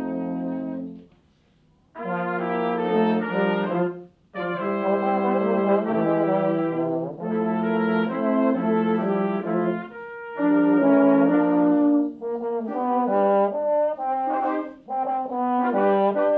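Brass sextet of trumpets, trombones and horn playing: a held chord cuts off about a second in, and after a short pause the ensemble starts a new passage of moving chords, broken by brief breaths between phrases.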